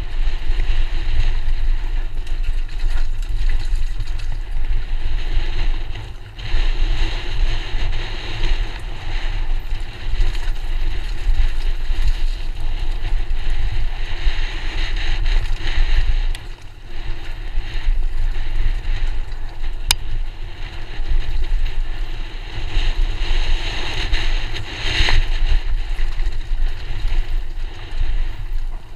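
Wind buffeting the microphone of a camera riding on a downhill mountain bike, over the rumble and hiss of knobby tyres rolling down a dirt and gravel trail. One sharp click partway through.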